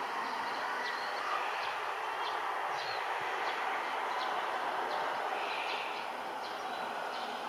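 Steady outdoor rushing noise with short, high bird chirps repeating about every half second.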